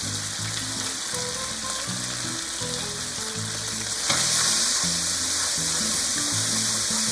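Oil, chili, oyster sauce and Thai chili paste sizzling in a hot pan while being stirred; the sizzle gets louder about four seconds in.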